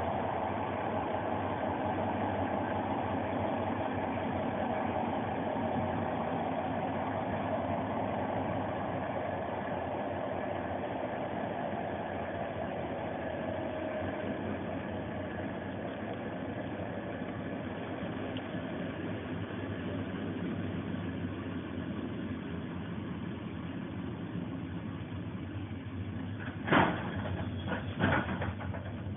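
Steady running noise of a Corail passenger carriage at speed, heard from inside: wheels on rail and rolling rumble, easing slightly in loudness. Near the end come two or three sharp knocks.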